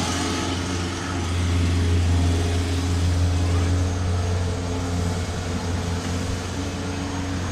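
Diesel engines of heavy construction machinery running steadily under work, a constant low drone with a faint hum of higher tones over it.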